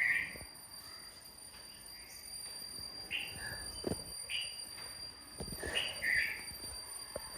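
Small birds giving short chirps, a few seconds apart, over a steady faint high tone, with a few soft low thuds.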